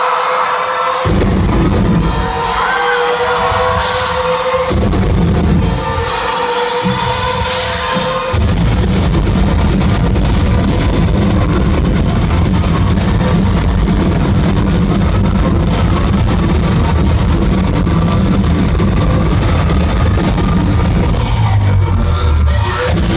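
Loud live heavy metal from a rock band with drum kit and electric guitars over a concert sound system. For about the first eight seconds the band plays stop-start hits with a held note over them, then drums and guitars play continuously.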